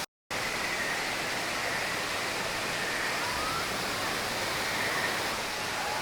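Steady rushing of an artificial waterfall, with faint voices of passers-by underneath. The sound drops out completely for a moment right at the start.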